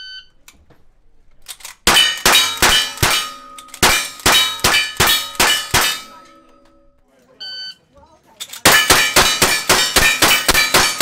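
Electronic shot-timer beep, then a fast string of lever-action rifle shots, each followed by the ring of a struck steel target. A second timer beep about seven and a half seconds in starts another rapid string of rifle shots and steel rings near the end.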